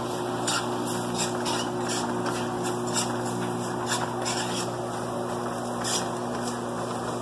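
Spices and curry base frying in canola oil in a pan, a steady sizzle with irregular small crackles, over a constant mechanical hum.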